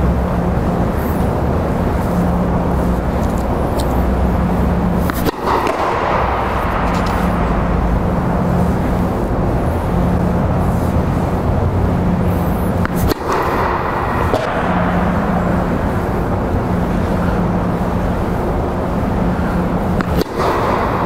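Steady, loud fan-like rushing noise with a low hum, the sort made by the blowers that keep an air-supported tennis dome inflated. It is broken by a few sharp clicks, about 5, 13 and 20 seconds in.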